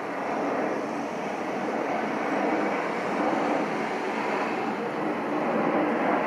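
Pratt & Whitney PW1400G geared turbofans of an Irkut MC-21-300 airliner in flight, heard from the ground as a steady jet rush that swells slightly as the aircraft passes.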